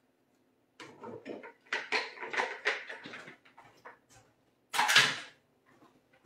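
Kitchen utensils and a small baking pan being handled as batter is put into the pan: a run of light knocks and scrapes, then one louder, brief noise about five seconds in.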